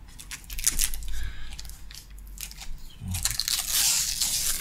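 Clear plastic sleeve around a graphics tablet crinkling as it is handled: a few scattered crackles, then a longer, denser crinkling from about three seconds in.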